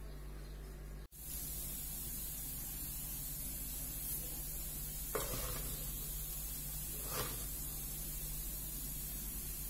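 Steady background hiss over a low hum, broken by a brief dropout about a second in. Two faint short sounds come about two seconds apart near the middle.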